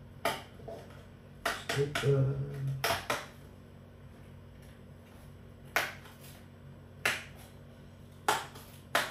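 Fingers working the tucked flap of a small cardboard box open: several sharp clicks and snaps of card, spaced irregularly, with a brief voiced hum about two seconds in.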